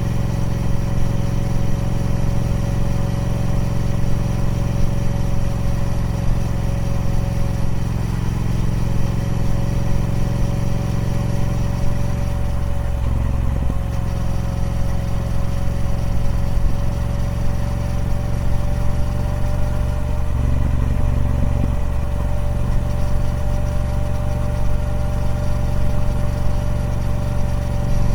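Triumph Speed Twin 1200's 1200cc parallel-twin engine running through its stock exhaust, with a steady, even note. The note changes briefly twice, about halfway and again about three-quarters through.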